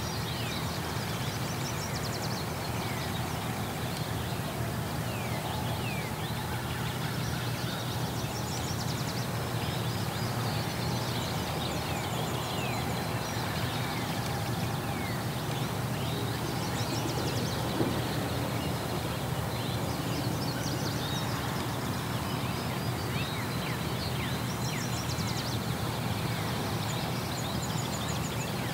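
Small songbirds chirping and trilling in short repeated phrases over a steady low outdoor rumble, with one brief knock partway through.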